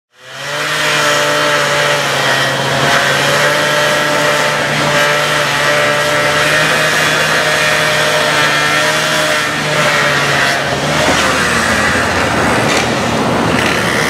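Gas-powered hand-held cut-off saw running at full throttle, its blade grinding into the asphalt road surface. The steady engine note breaks up into a rougher sound about eleven seconds in.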